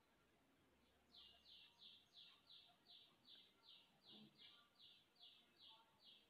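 A faint series of about fourteen short, high chirps, close to three a second, each note dropping slightly in pitch. The chirps start about a second in.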